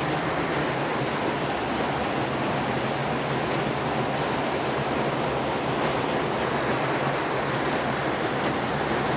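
Steady rushing hiss from a pot of Maggi noodles cooking on the stove, with a faint low hum underneath.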